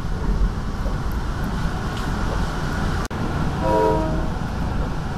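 Steady rumble of a moving Comet IV passenger train heard from inside the coach. About three and a half seconds in, after a brief break in the sound, the train's Nathan K5LA five-chime horn sounds a short chord blast.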